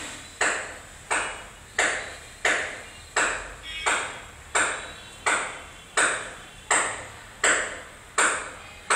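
A sharp ping repeating at a steady pace, about three every two seconds, each starting suddenly and fading quickly.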